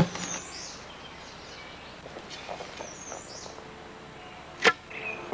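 Quiet forest ambience with a few faint bird chirps, then one sharp crack near the end as an arrow is shot from a bow.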